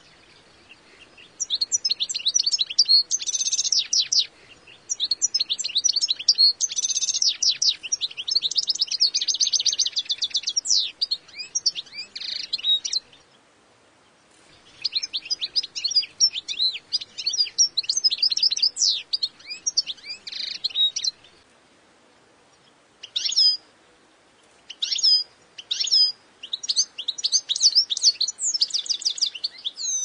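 European goldfinch singing: rapid twittering phrases of high, quick notes in two long bouts with a short pause between, then a few shorter separate calls after a longer pause.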